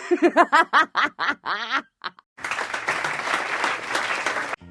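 Laughter in a quick run of short 'ha' bursts, then applause starting about two and a half seconds in and cutting off suddenly near the end.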